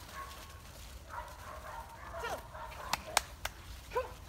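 A pack of dogs, mostly springer spaniels, gives excited whines and short yips. There are falling yelps about two seconds in and again near the end, and a few sharp clicks just after the middle.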